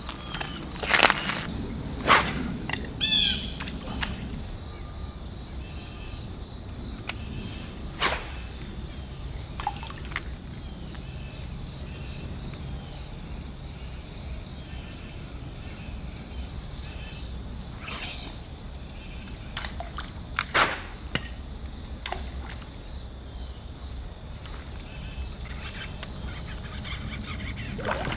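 A steady, unbroken, high-pitched insect chorus droning throughout, with a few scattered clicks and knocks now and then.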